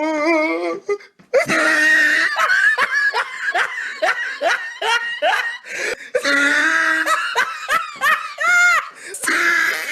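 Hearty laughter in quick, rapid bursts, going on almost without a break.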